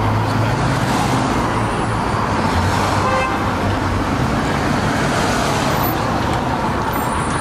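Busy city street traffic: a steady mix of engine and tyre noise from cars, including a taxi driving past, under a constant low engine hum.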